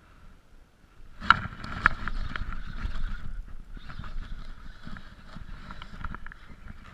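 Jacket sleeve rubbing and knocking against a chest-mounted action camera as a fish is hooked and reeled in on a spinning rod. The handling noise starts about a second in with two sharp knocks, then keeps up with scattered clicks.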